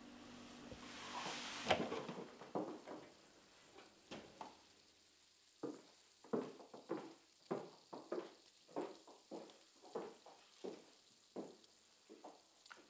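Kitchen cooking sounds: a soft hiss in the first two seconds, then a steady run of light knocks and clicks, about two a second, over faint sizzling.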